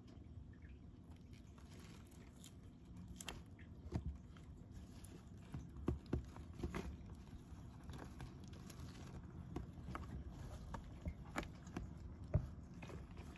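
Young Greek tortoise biting at a komatsuna leaf and shuffling over coconut-husk chip bedding: faint, scattered clicks and crackles, a few sharper ticks among them.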